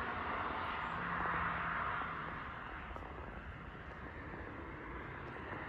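Steady road noise of a distant vehicle running, with a faint low hum, slowly fading after about two seconds.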